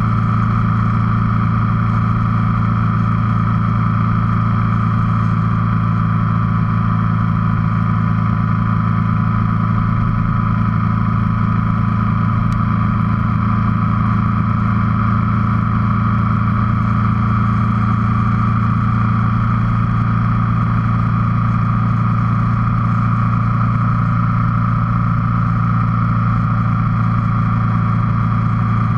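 Motorcycle engine holding a steady cruising speed, its drone mixed with wind and road noise, unchanging throughout.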